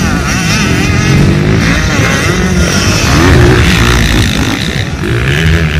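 Several motocross dirt bikes revving up and down in pitch as they ride round the track, over heavy wind buffeting on the microphone.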